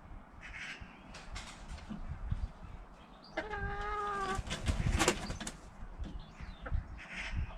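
Backyard hens calling, with one drawn-out, evenly pitched hen call lasting about a second roughly three and a half seconds in, and a sharp knock shortly after it amid faint scuffing.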